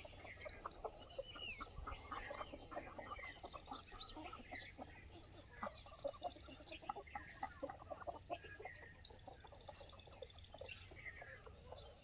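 A free-range flock of Aseel and desi chickens clucking softly, many short scattered calls overlapping.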